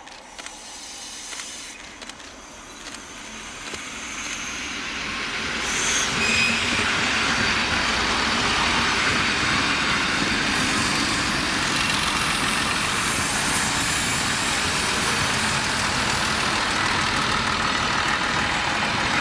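Three-unit set of FS ALn 668 diesel railcars approaching and passing close by: the engines and wheels on the rails grow louder over the first six seconds, then hold at a steady, loud rumble as the cars go past. The sound cuts off suddenly at the end.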